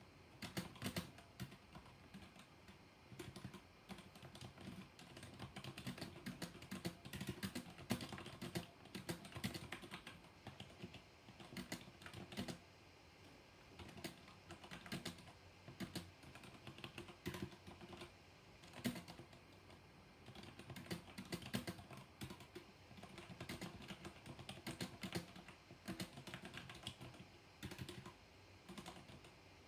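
Typing on a mechanical keyboard with black linear switches: quick runs of key clacks, broken now and then by short pauses.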